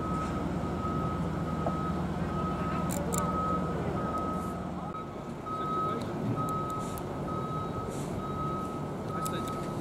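Reversing alarm on a truck or heavy equipment beeping evenly, a little under two single-tone beeps a second, over a low engine rumble that drops away about halfway through.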